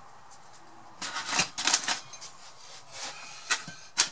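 Light clicks and clatter of kitchen utensils being handled as a kitchen knife is fetched from the knife block. The clicks come in a cluster about a second in and singly near the end.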